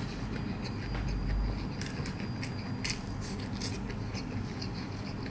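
A person eating: chewing and mouth sounds, with a few short, sharp clicks scattered through.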